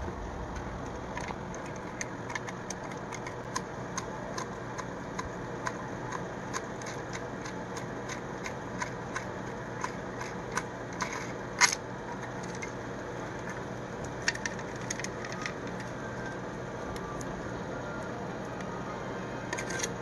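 Scattered small clicks and taps of needle-nose pliers working a power button's metal retaining nut, with one sharper click a little past halfway, over a steady low hum.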